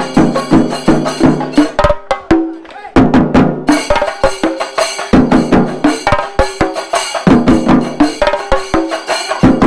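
Music driven by fast, loud drum beats over pitched accompaniment; the drums thin out and nearly stop at about two seconds in, then come back at three seconds.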